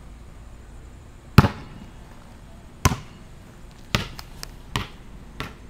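A basketball bouncing on concrete pavement: several sharp separate bounces, the first about a second and a half in the loudest, the later ones coming quicker and softer.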